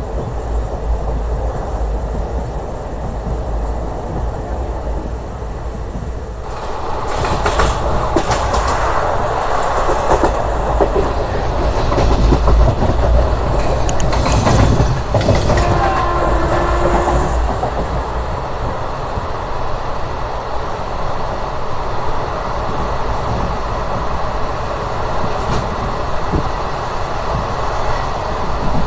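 Passenger coach of an express train running at speed: a steady low rumble of wheels on the rails and rushing air through the open door. About six seconds in it grows louder and brighter, with a run of sharp clicks from the wheels over rail joints and points for roughly ten seconds before easing back to the steady run.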